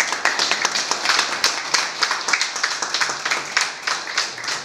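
A room full of people applauding: many hands clapping at once in a dense, steady patter.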